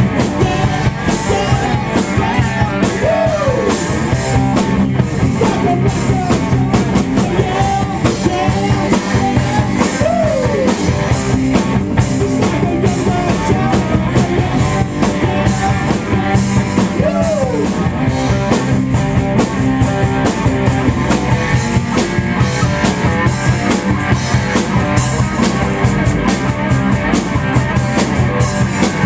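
Live rock band playing loud with electric guitars and a drum kit pounding steadily, in an instrumental stretch with no singing. A lead line bends notes up and back down three times, about seven seconds apart.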